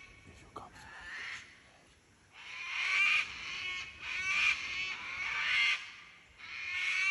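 Birds calling: a faint call near the start, then four louder calls in a row, each just under a second long, from about two and a half seconds in.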